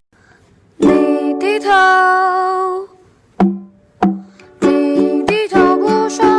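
Music with a small plucked string instrument and a singing voice. After a brief pause, a chord and a long sung note sound together, then two single plucked notes, then a steady strummed rhythm with singing over it.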